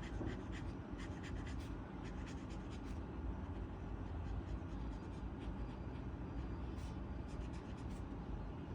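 A colouring tool scratching on paper in quick, irregular strokes as an area of a drawing is filled in. A low steady rumble runs underneath.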